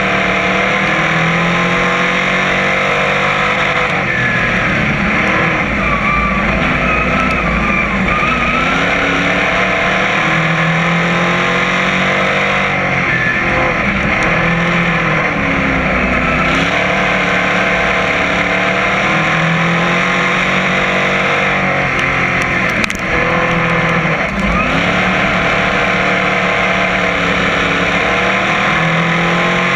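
A crate modified race car's V8 engine running hard at racing speed, heard from inside the cockpit. Its pitch dips and climbs back every few seconds as the car lifts for the turns and drives off down the straights, lap after lap.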